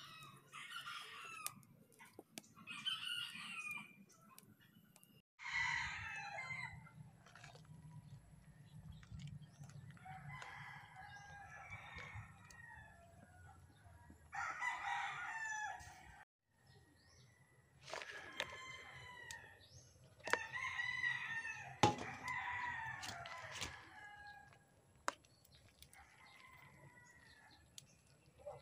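Rooster crowing again and again, with chickens clucking between the crows. Scattered sharp clicks, the loudest a little past three-quarters of the way through.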